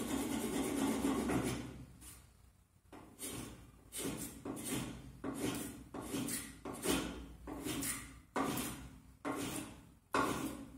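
Hand spokeshave shaving a thin strip of wood held in a vise. One long rasping pass, then a run of short strokes a little under one a second, each starting sharply.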